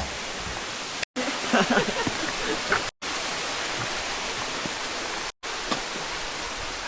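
Steady rushing of a waterfall, cutting out briefly three times. Indistinct voices are heard faintly between about one and three seconds in.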